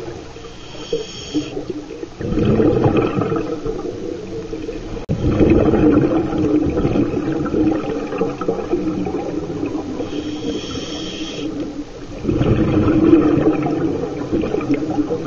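Scuba regulator breathing underwater: short hissing inhalations through the regulator about a second in and again about ten seconds in. Each is followed by a long, loud bubbling rush of exhaled air.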